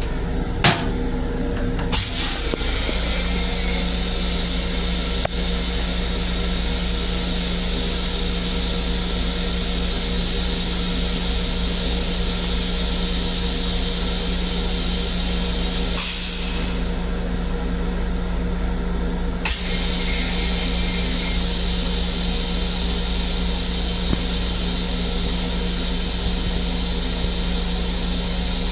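Train restroom toilet being flushed: a sharp click, then about two seconds in a motor starts and runs steadily with a rushing hiss, over a constant low rumble.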